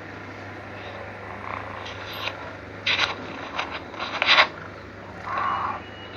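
Sleeping kitten's low, steady snoring, broken by a few short scraping sounds between about three and four and a half seconds in.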